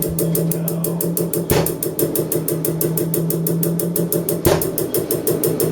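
Ford Mondeo 1.8 TDCi four-cylinder diesel engine running steadily with a fast, even clatter, and two sharper knocks about a second and a half and four and a half seconds in.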